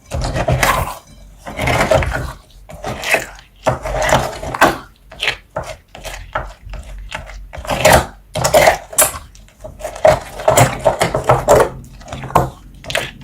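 Slime being squished and worked by hand: a run of irregular wet squelches and crackling pops, about one or two a second.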